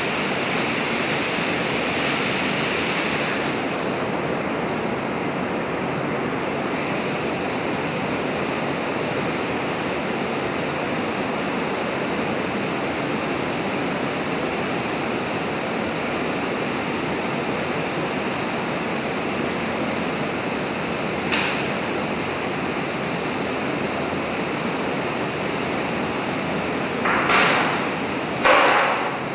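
Steady rushing noise of a full-scale office-cubicle fire test, with the workstation burning while the heptane spray burner and the lab's exhaust hood run. A few brief louder sounds stand out, one about two-thirds of the way in and two near the end.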